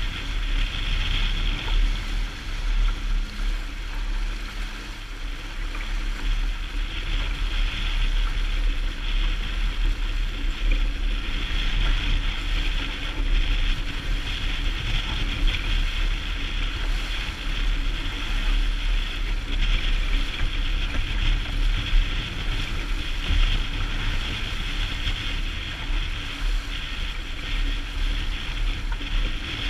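Strong wind buffeting a GoPro's microphone on a sailboat under way, a steady low rumble, with water rushing and splashing along the hull.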